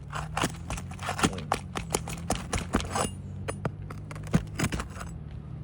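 Quick, irregular clicks and scrapes of a roof snake, a metal nail-pulling tool, worked under an asphalt shingle against the nails and shingle, over a steady low hum.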